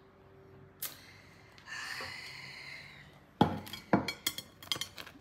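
A ceramic plate being set down on a kitchen countertop: a quick run of sharp clinks and knocks starting about three and a half seconds in.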